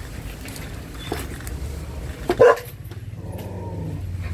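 A dog barks sharply about two and a half seconds in, then gives a longer drawn-out call near the end. Underneath are light knocks of a cleaver chopping on a wooden board.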